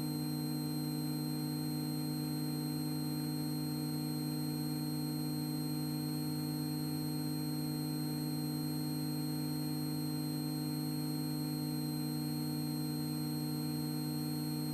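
Extra EA-200's engine and propeller at full take-off power, a steady drone of several fixed pitches with a faint high whine above it.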